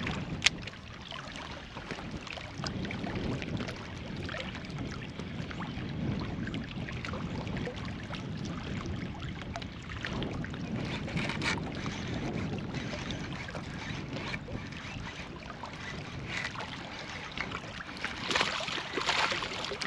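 Wind buffeting the microphone over small waves lapping against a rocky bank, a steady low rumble, with one sharp click about half a second in.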